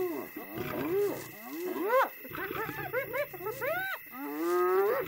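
Spotted hyenas calling: a rapid run of short yelping cries that rise and fall in pitch, several voices overlapping, then a longer call that climbs in pitch near the end, over a low rumble.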